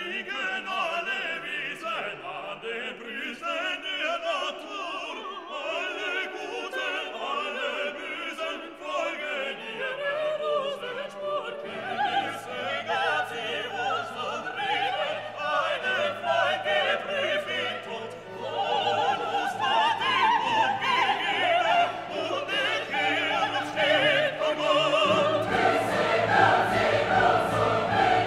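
Classical background music with operatic singing and orchestra, growing fuller and louder in the second half.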